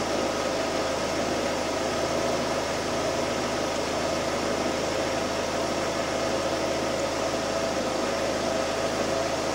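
2006 Suzuki Forenza's four-cylinder engine idling steadily at about 790 rpm, a constant hum and hiss. The engine is running smoothly after a cylinder-head replacement for valves bent by a broken timing belt.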